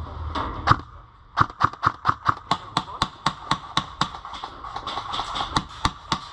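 Airsoft gun firing a rapid string of single shots, about five a second, starting about a second and a half in and running until just before the end.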